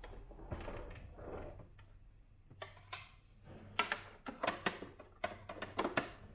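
A soft rustle, then a quick series of a dozen or so sharp clicks and knocks of hard plastic parts being handled on an espresso machine.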